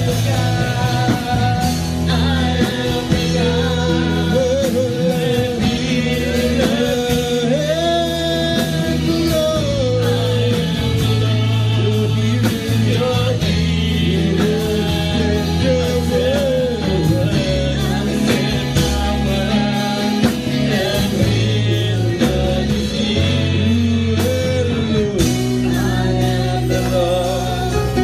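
Gospel praise music: a voice singing over a band, with held bass notes and a steady beat of drum strikes.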